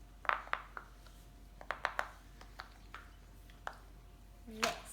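Fidget toys being handled: a series of light, irregular clicks and taps.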